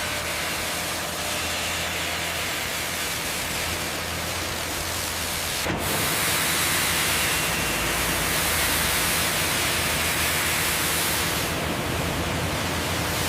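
Steady machinery noise: a hissing rush over a low hum, with a brief break about six seconds in, after which it is a little louder.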